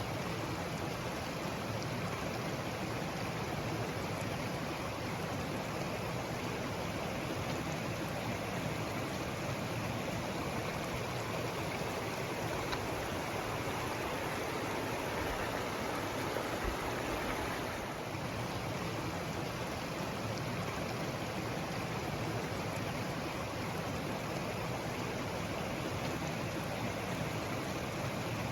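Steady rush of a mountain stream's water, unbroken and even throughout.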